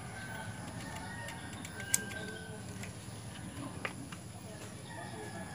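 Yard ambience: distant birds calling and faint background voices, with two sharp clicks, about two seconds and four seconds in.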